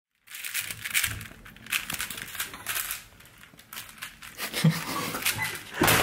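Rapid clicking and clattering of a plastic 3x3 speed cube being turned fast in quick runs, easing off midway, then a sharp knock near the end as a hand comes down on the speed-stack timer.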